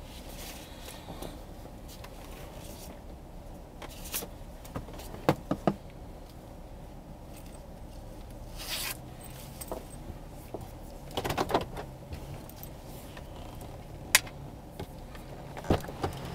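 Scattered sharp clicks and light rattles, in small clusters and single knocks, over a low steady hum, heard from inside a parked vehicle's cab.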